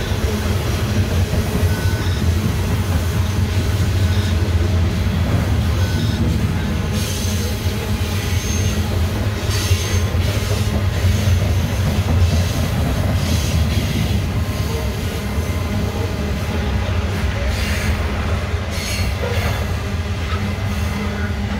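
Loaded coal hopper cars of a freight train rolling past: a steady, loud low rumble of steel wheels on rail, with brief wheel squeals and clanks every few seconds.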